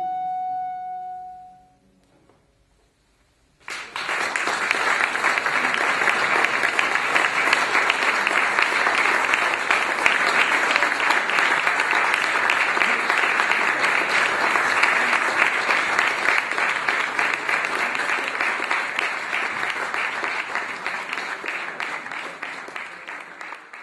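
The final held note of a flute and harpsichord piece dies away, and after a brief pause an audience breaks into long, steady applause that fades out near the end.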